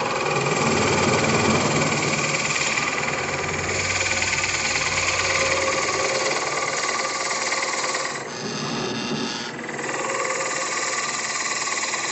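Drill press running as its bit bores down into a cedar block, chips cutting away under steady load. The cutting eases briefly about eight seconds in, then carries on.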